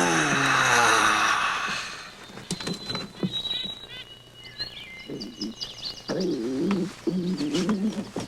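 A long, loud burp that slides down in pitch, with a rushing whoosh over its first two seconds. Clicks and steady whistling sound effects follow, then a warbling, croaking voice from about five seconds in.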